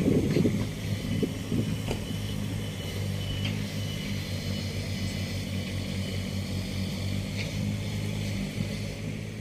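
Diesel engines of Kubota mini excavators running in a steady low hum while they dig and level sand, with a few faint clicks and clanks from the working arms. It fades out at the very end.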